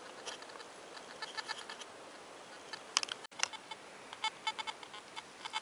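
Nokta Makro Simplex+ metal detector giving short, scattered beeps while it is swept over the forest floor, the blips coming more often in the second half. A sharp click sounds about three seconds in.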